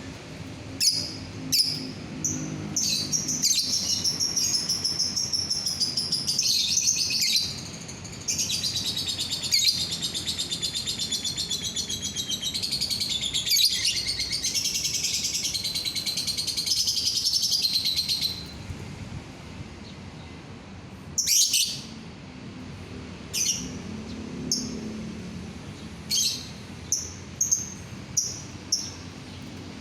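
Lovebird singing: a few sharp high chirps, then a long unbroken run of rapid, high, chattering trill lasting about fifteen seconds, which breaks off into short separate chirps for the rest of the time.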